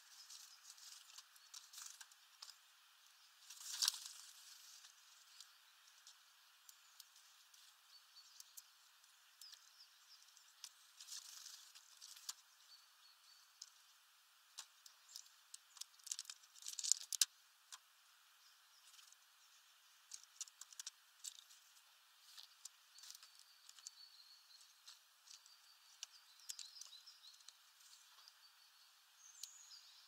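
Faint scattered clicks and taps of a European greenfinch and a great tit pecking and cracking sunflower seeds on a wooden feeder tray, with seed husks rustling. Busier flurries of clicks come about four seconds in, around eleven seconds and around seventeen seconds.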